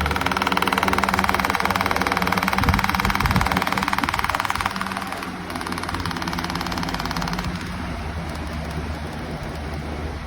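Pelonis 20-inch four-blade box fan running, a steady rush of air over a low motor hum. The sound drops in level in two steps, about halfway through and again near three quarters of the way.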